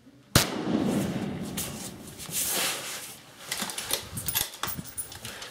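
A single rifle shot fired close by, a sharp crack whose report rolls away over about a second. It is followed by rustling and knocking of clothing and rifle gear as a shooter moves from prone to sitting.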